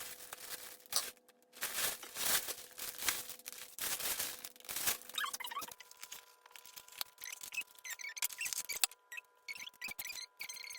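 Packaging being handled during unboxing: bursts of rustling and tearing in the first half, then a run of short squeaks, like plastic or foam packing rubbing, through the second half.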